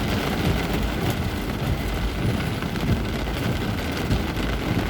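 Heavy downpour: a dense, steady patter of rain over the low rumble of vehicle engines in jammed traffic.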